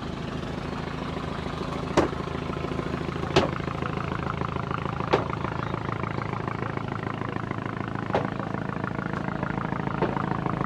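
An engine running steadily at idle, with a few sharp knocks every couple of seconds.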